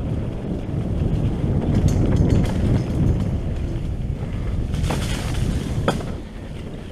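Wind buffeting the microphone on a mountain bike riding down a dirt trail, with a steady low rumble of tyres and two sharp knocks from the bike late on.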